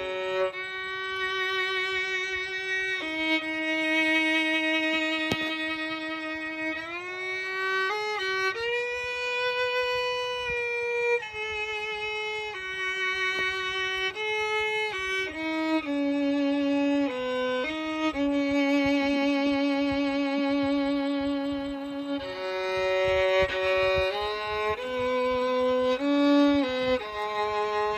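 Background music: a slow solo melody on a bowed string instrument, long held notes joined by sliding changes of pitch.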